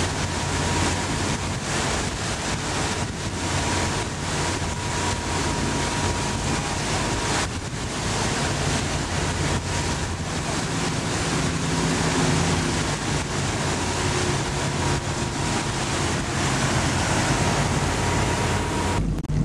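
A motorboat's engine drones steadily under way beneath heavy wind noise buffeting the microphone and rushing water.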